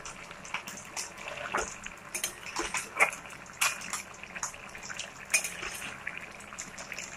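Metal ladle scraping and clinking against a metal kadai while stirring wet, saucy greens and fried fish, in irregular strokes with a soft liquid squelch.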